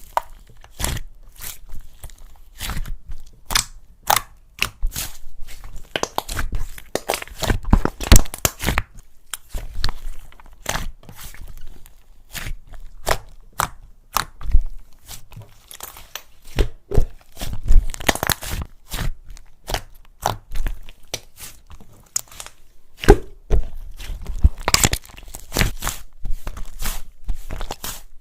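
A large mixed batch of slime being squeezed, poked and stretched by hand, making many irregular sticky pops, clicks and crackles.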